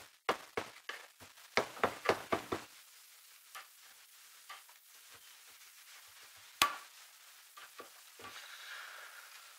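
A hammer tapping a screwdriver against a pipe-threading die head held in a vise: about eight sharp metallic knocks in quick succession, roughly three a second. Then a quieter stretch of handling, with one sharp click about two-thirds through as pliers work at the die head.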